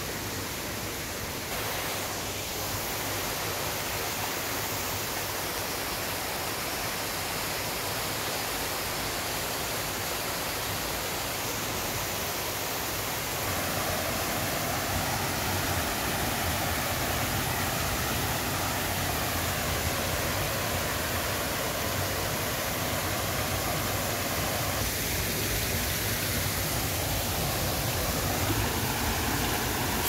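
Mountain stream rushing over rocks and a small cascade: a steady wash of running water that grows a little louder about halfway through.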